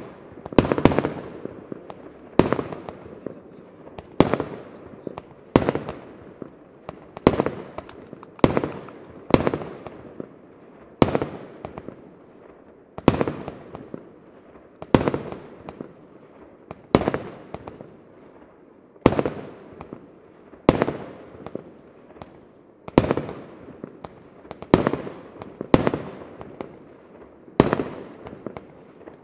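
Aerial firework shells bursting one after another in a professional display, a sharp bang about every one and a half to two seconds, each dying away in echo and crackle.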